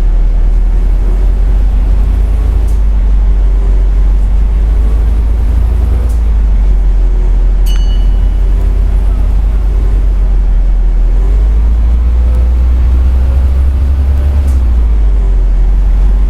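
Double-decker bus engine and drivetrain heard from inside while driving: a steady deep rumble with shifting whining tones, growing heavier about eleven seconds in. A short high ding sounds about eight seconds in.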